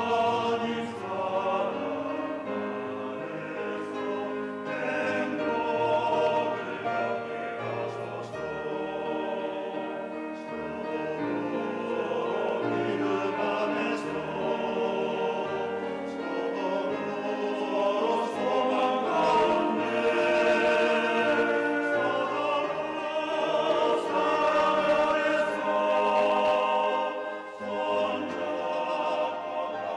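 Church choir singing a hymn in several parts, in long held notes that move from chord to chord.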